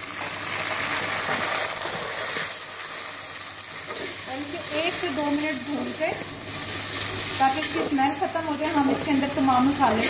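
Boiled chicken pieces sizzling in hot oil with onions and ginger-garlic paste in an aluminium pot, stirred and turned with a metal spatula scraping the pot, as the chicken is browned in the masala.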